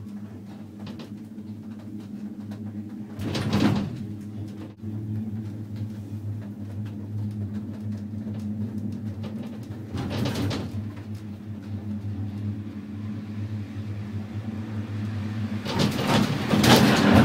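Ride inside a six-person Poma gondola cabin: a steady low hum with a short clatter a few seconds in and another about ten seconds in, typical of the cabin rolling over a tower's sheaves. A louder, longer clatter near the end as the cabin runs into the station.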